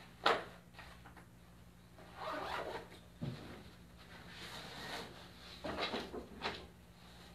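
A fabric bag and clothes being handled and packed: several short rustling, scraping strokes, the sharpest about a quarter second in, over a steady low hum.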